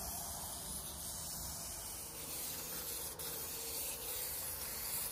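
Aerosol spray can of John Deere yellow paint hissing steadily as the final coat is sprayed on.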